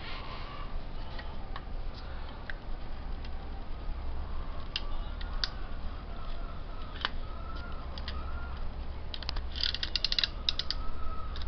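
Plastic handlebar phone cradle being fitted around a phone by hand: scattered clicks and creaks of the plastic clamp. About ten seconds in, a quick run of clicks comes as the side grips are pushed in against the phone.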